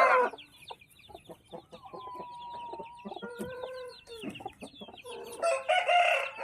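Aseel chicks peeping constantly in quick high chirps, with a couple of long drawn-out calls in the middle. A rooster crows loudly about five and a half seconds in.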